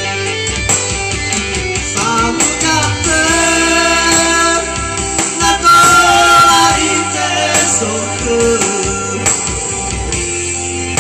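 A person singing a melody over guitar accompaniment, with long held notes.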